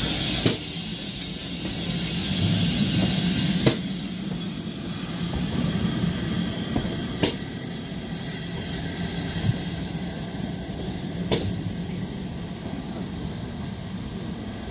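GWR Hall-class steam locomotive 6989 Wightwick Hall moving slowly past at close range, with a steady low hum and four sharp clicks a few seconds apart.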